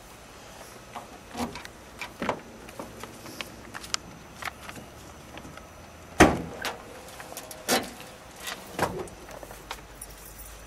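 Trunk lock and lid of a 1970 Chevrolet Chevelle being worked open: a scatter of small clicks and knocks, the loudest a sharp clunk about six seconds in, then a few lighter knocks as the lid comes up.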